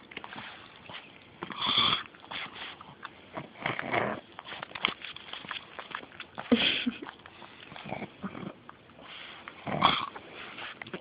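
A pug snorting and sniffing with her nose right against the microphone, giving four loud breathy snorts a couple of seconds apart, with small sniffs and clicks between them.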